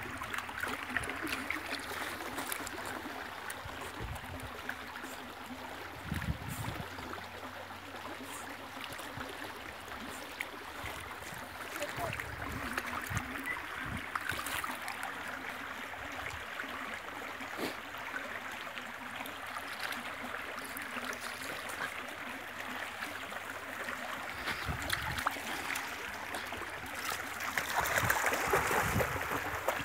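Shallow stream babbling over stones, with a few short low thumps; the water grows louder near the end.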